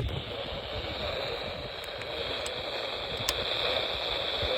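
Steady static hiss from a NOAA weather radio receiver tuned to a weak or empty channel.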